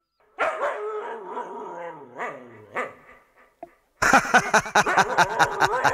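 A dog whining in long, drawn-out, wavering cries for about three seconds. Then loud music with a steady beat cuts in abruptly about four seconds in.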